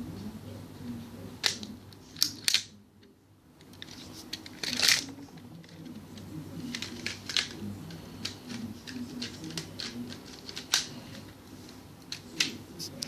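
Plastic clicks and clacks of a Lego brick-built SKS-style blowback rifle's mechanism being worked by hand. They come at irregular times, a handful of loud sharp snaps among many lighter clicks.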